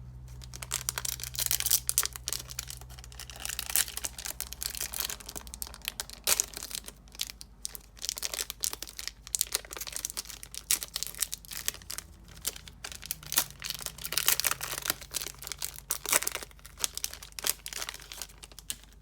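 Foil wrapper of a vintage Japanese Pokémon Gym booster pack crinkling in dense, irregular crackles as it is handled and opened by hand.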